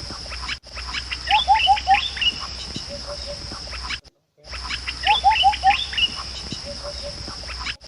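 Bird calls, a quick run of four rising whistled notes with higher chirps among them, over a steady high insect drone. The same stretch repeats like a loop, cut by brief silent gaps.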